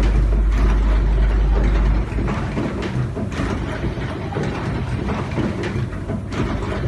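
Fully automatic crimping machine for 16A plug inserts running: a steady mechanical clatter with a few sharper clicks. A deep low rumble under it drops away about two seconds in.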